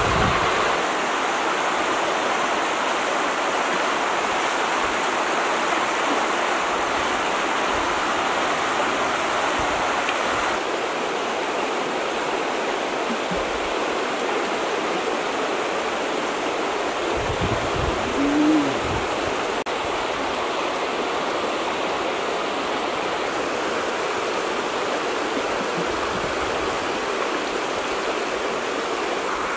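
Steady rushing of flowing river water, with one short sound about eighteen seconds in.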